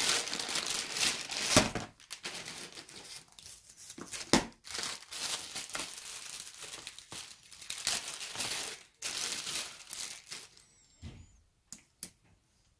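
Thin plastic bags crinkling and rustling as they are pulled off a laptop power adapter and its cables. Loudest in the first two seconds, then coming and going and thinning out, with a few light knocks near the end.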